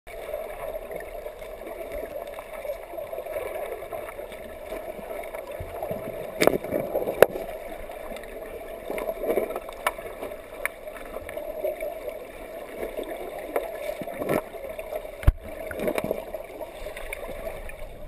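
River water heard underwater: a steady muffled rush, broken by scattered sharp clicks and knocks, a few of them louder about six to seven seconds in and again near fifteen seconds.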